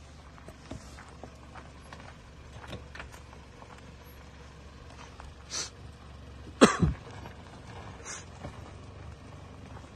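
Low rumble of an off-road vehicle's engine running in the background, with scattered small knocks. About two-thirds of the way in comes a brief loud sound that sweeps sharply downward in pitch.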